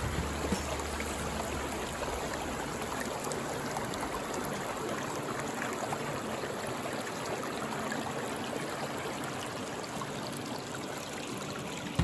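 Steady rush of flowing river water running high.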